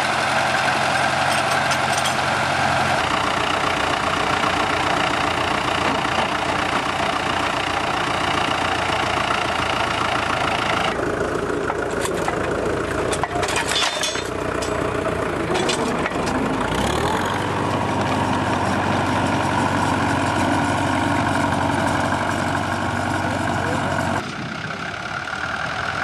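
McCormick-Deering WD-6 tractor's diesel engine running steadily, pulling a two-furrow plough. The engine's tone shifts abruptly several times.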